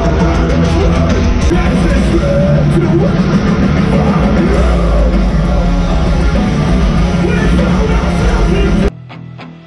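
Loud live rock music from a festival stage's PA, with electric guitars and singing. About nine seconds in it cuts abruptly to a much quieter passage of separate picked guitar notes.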